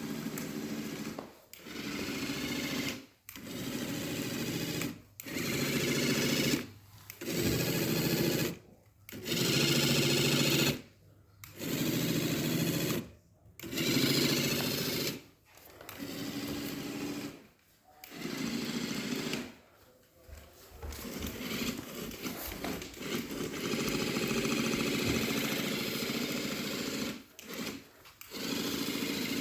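A small electric motor running in short bursts of one to two seconds, stopping and starting suddenly about a dozen times, then running steadily for several seconds near the end.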